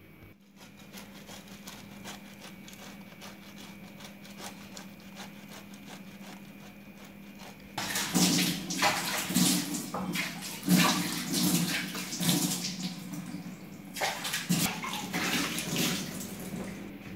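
Wet squelching and squishing in irregular bursts, from ripe mango flesh being squeezed by hand, loud from about halfway in with a short break before the last bursts. Quieter small clicks and a faint steady hum come before it.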